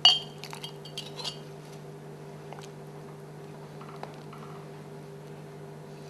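Metal ladle clinking against a glass tumbler as soup is ladled into it: one sharp clink at the start, a few lighter clinks over the next second and a half, then a couple of soft ticks, over a steady low hum.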